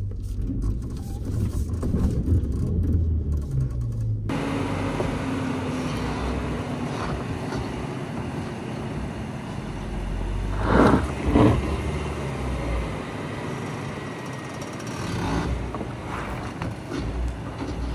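BYD Shark 6 ute working its way over rough off-road ground: a steady low rumble of driveline and tyres, broken by two loud knocks or scrapes about half a second apart roughly eleven seconds in.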